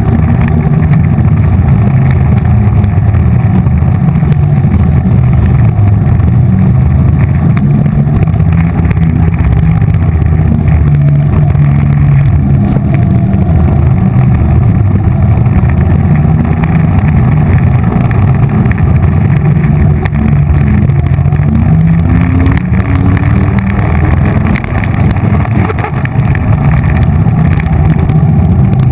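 Quad roller skate wheels rolling over a rink floor, a loud steady rumble picked up close to the wheels.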